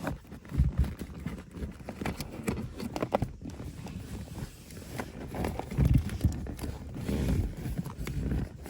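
Irregular taps, clicks and low thumps of hands handling an LED light strip's wiring and plastic parts inside a car, routing the cable under the seat.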